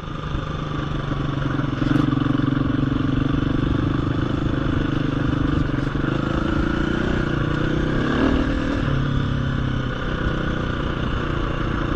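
KTM 350 EXC-F single-cylinder four-stroke dirt bike engine running steadily under way. Its pitch bends briefly about eight seconds in.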